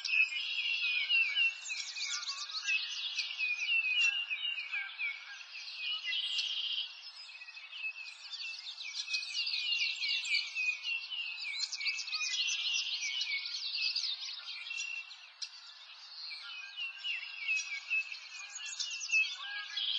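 A dense chorus of many small birds chirping and trilling over each other without a break, all high-pitched with nothing deep underneath.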